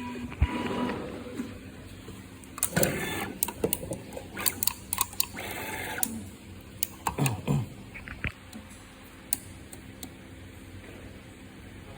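Automatic wire stripping and soldering machine running a test cycle: a series of sharp mechanical clicks and short hissing bursts over its first several seconds, settling into a steady low hum.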